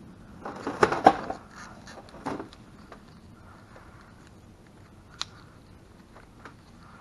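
Gloved hands working a toothed rubber timing belt onto the pulleys of an EZGO golf cart engine: a burst of rubbing and rattling about a second in, a shorter one near two and a half seconds, then a single sharp click a little after five seconds and a few faint ticks.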